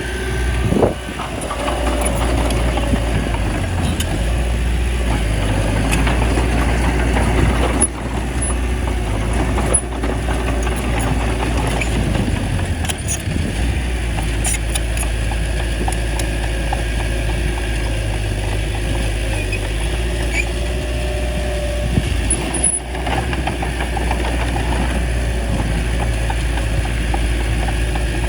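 Small bulldozer's diesel engine running steadily, with a deep rumble and occasional short knocks, and its level briefly dipping a few times.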